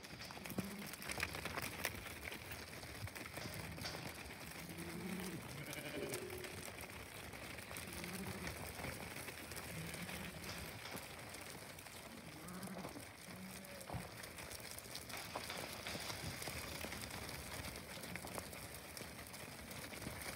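A flock of sheep moving through a dirt yard: a steady shuffle of many hooves, with short, low bleats breaking out now and then throughout.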